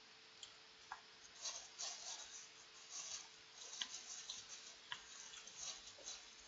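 Faint eating sounds: chewing jokbal (braised pig's trotters), heard as soft crackles and mouth clicks, with a few sharper single clicks. A faint steady hum lies underneath.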